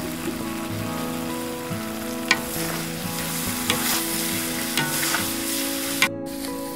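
Fish pieces and fresh leafy herbs sizzling as they are stir-fried in a large metal wok, a metal spatula stirring and scraping through them, with about four sharp clanks of the spatula against the wok.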